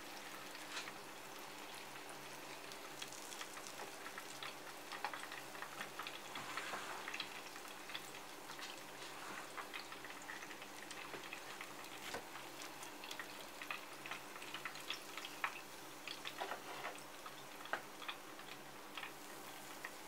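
Faint, irregular crackling of hot oil on freshly deep-fried maitake mushroom tempura draining on a wire rack, over a steady low hum.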